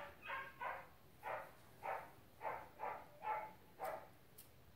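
A dog barking, nine quick barks at about two a second, stopping about four seconds in.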